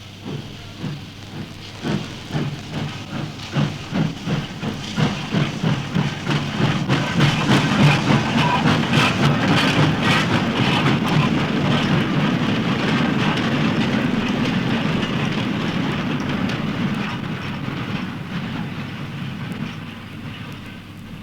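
A train running on the rails: rhythmic beats that quicken and grow louder over the first several seconds, merging into a steady rumble that slowly fades away.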